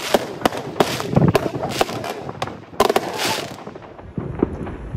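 Aerial fireworks exploding in quick succession, a dense run of sharp bangs and crackling. About three and a half seconds in, it drops to fainter, sparser bangs.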